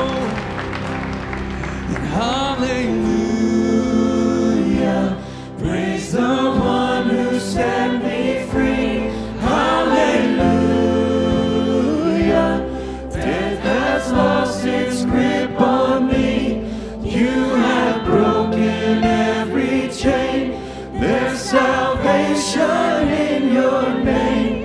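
Church worship music: singers leading a congregational gospel song over a live band, with steady bass and regular drum and cymbal hits.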